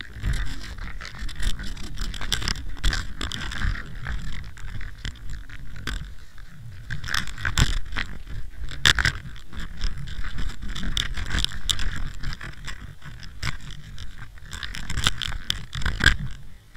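Muffled underwater noise picked up by a camera in its waterproof housing on a mackerel handline: a low rumble with many irregular knocks, clicks and scrapes as the line and hooked mackerel jerk against it.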